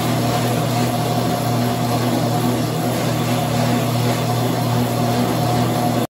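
Motorized treadmill running with a steady mechanical hum over an even hiss.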